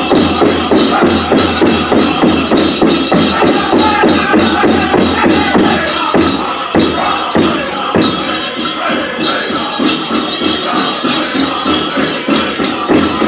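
Powwow drum group performing a chicken dance song: voices singing over a big drum struck in a steady, fast beat.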